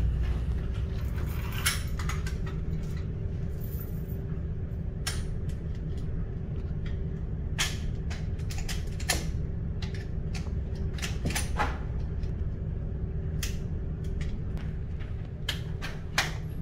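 Scattered sharp clicks and knocks at irregular intervals over a steady low hum, the sounds of a shooting range just before firing.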